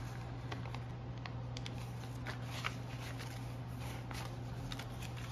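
Paper banknotes rustling as a stack of US dollar bills is handled and sorted by hand: a few brief, crisp crinkles over a steady low hum.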